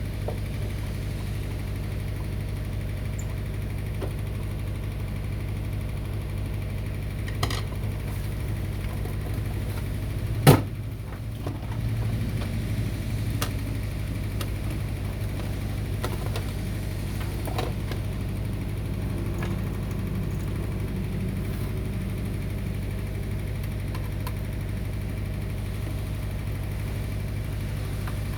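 A steady low hum, with a few short clicks and knocks from things being handled; the sharpest knock comes about ten seconds in.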